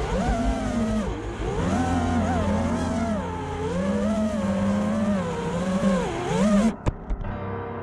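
FPV quadcopter's brushless motors whining, the pitch rising and falling with the throttle. The sound cuts off abruptly with a sharp knock a second before the end.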